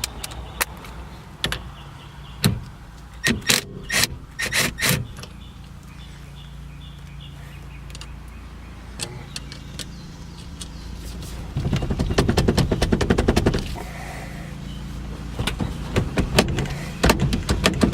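Tools working on a steering column: scattered sharp clicks and knocks, then about two seconds of rapid, evenly spaced clicking a little past the middle.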